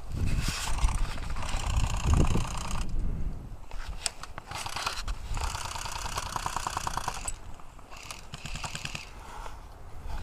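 Bursts of airsoft automatic fire, a rapid rattle of clicks lasting a second or more each, several times with short pauses between.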